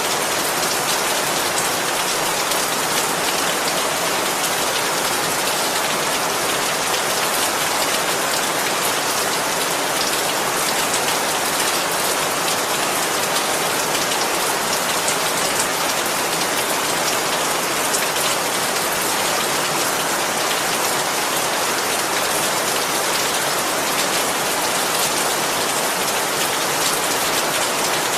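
Steady rain falling on a surface, an even hiss dense with fine drop patter, unchanging throughout.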